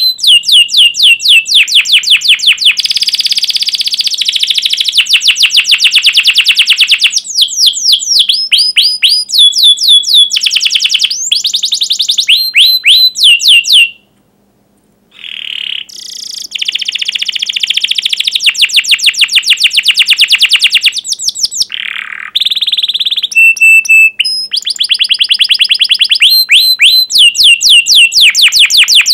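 Domestic canary singing: long runs of rapid, repeated high falling chirps ('cuit cuit') and fast rolling trills, with a brief break about halfway through.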